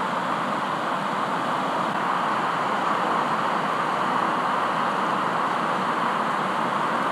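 Sea surf breaking and washing, a steady, even rush of white water with no distinct crashes.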